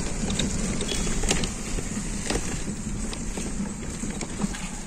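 Cycle rickshaw rolling over a rough, broken road: a steady low rumble from the wheels, with scattered rattles and clicks from its wooden and metal frame.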